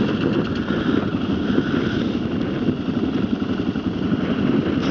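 Kawasaki KLR650's single-cylinder engine running steadily just after being started, with strong wind buffeting the microphone.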